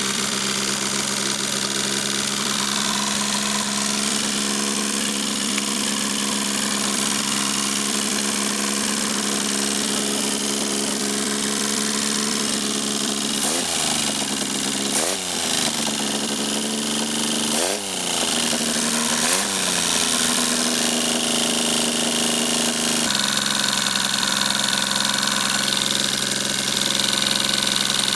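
Suzuki G10 one-litre three-cylinder fuel-injected engine running steadily at idle on a test stand, its timing belt exposed. About halfway through, the engine speed dips sharply and recovers four times in quick succession, then it settles back to a steady idle.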